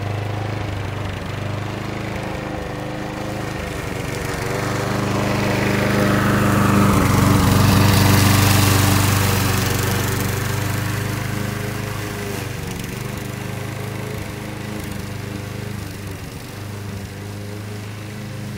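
Walk-behind lawn mower engine running steadily while cutting grass. It grows louder as it passes close by about eight seconds in, then fades somewhat as it moves away.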